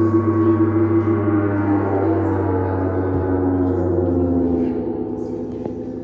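A large flat gong, its lower edge in a glass water tank, ringing on after a soft-mallet strike, many tones at once slowly dying away. The deep hum drops out about four and a half seconds in, and the ring cuts off suddenly at the end.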